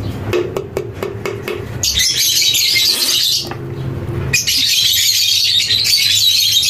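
African lovebirds chattering and squawking in a dense, high-pitched run that starts about two seconds in, pauses briefly around four seconds and then resumes; a few light clicks and knocks come before it.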